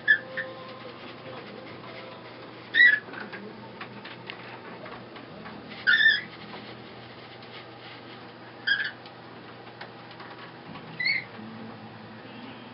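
Hand-turned wooden warping mill squeaking as it rotates. A short, high squeak comes about every three seconds, over a low steady hum.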